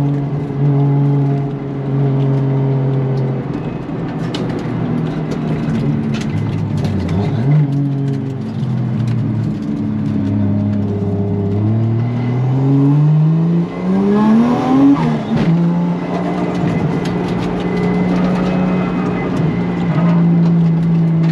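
Drift car's engine heard from inside the cabin, holding steady revs, then revving up in a rising climb for about three seconds past the middle before falling back sharply and settling at a higher steady note.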